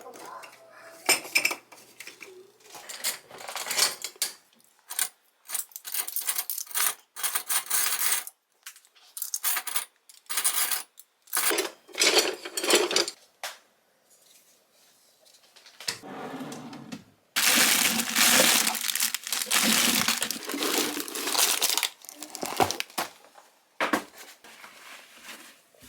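Kitchen items being handled: a run of clinks, taps and knocks of dishes, containers and small objects, then a few seconds of steady rushing noise starting about 17 seconds in, followed by more knocks.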